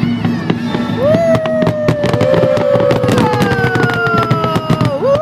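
Fireworks bursting and crackling in a rapid string of bangs, with a long pitched tone that starts about a second in and slowly falls in pitch until near the end.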